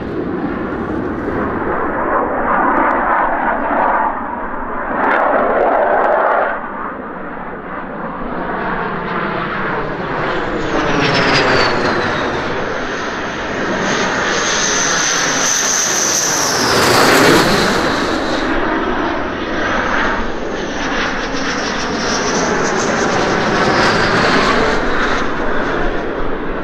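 F-15 Eagle fighters, twin Pratt & Whitney F100 turbofans, passing low overhead one after another on landing approach with gear down: loud, continuous jet engine noise that swells and fades as each jet comes over. A high whine sits on top and drops in pitch as a jet passes, loudest about 17 seconds in.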